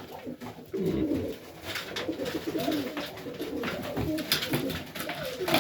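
Highflyer pigeons cooing in a loft, several low warbling coos overlapping one another, with scattered light clicks.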